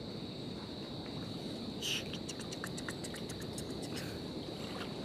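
Insects droning steadily at one high pitch over a low rumbling noise, with a brief hiss about two seconds in followed by a quick run of faint ticks.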